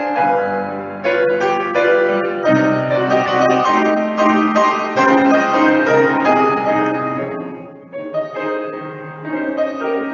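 Solo grand piano played with full chords and a melody, easing into a softer passage about eight seconds in.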